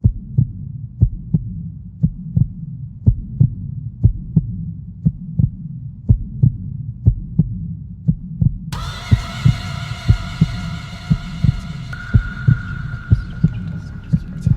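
Deep, heartbeat-like double thumps, about one pair a second, in an edited soundtrack; about nine seconds in, a held chord of steady tones joins the pulse.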